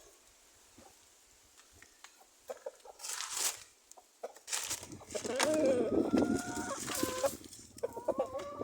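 Rooster crowing: after a couple of short rustling noises, one long call with held, stepping tones about five seconds in, and another call starting near the end.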